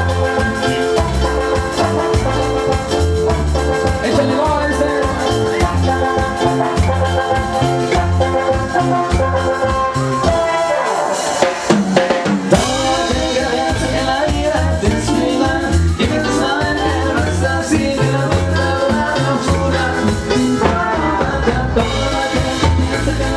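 Live band playing dance music: a drum kit keeps a steady beat under keyboard chords and melody, with a short break in the beat about eleven seconds in.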